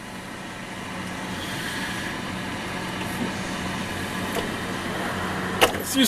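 Steady whir and hum of a Frigidaire top-mount refrigerator running, growing slightly louder, with a short knock near the end. The fridge runs non-stop because of a slow Freon leak.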